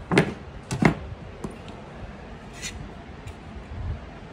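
Two sharp knocks about two-thirds of a second apart, then a few lighter clicks and a short rustle: small tools and parts being handled and set down on a workbench.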